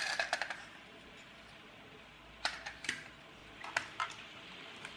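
Light clicks and taps from a small screwdriver and a toy car's hard plastic body and metal chassis being handled. There is a cluster of clicks at the start, then single clicks about two and a half and nearly four seconds in.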